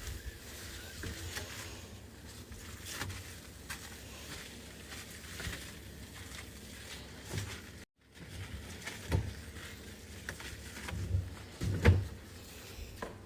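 Refrigerator being cleared out by hand: scattered light knocks, clinks and rustles of containers and shelves being handled, with the loudest knocks near the end. The sound drops out briefly a little past halfway.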